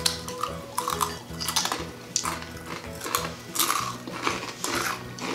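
Takis rolled tortilla chips being crunched while eaten and handled, irregular crackly crunches several times a second, over background music.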